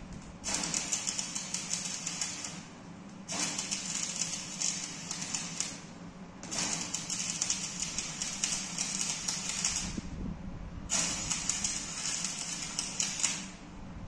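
Electric arc welding on the steel of a dump truck's door, the arc crackling in four runs of about two and a half to three and a half seconds each, with short pauses between them.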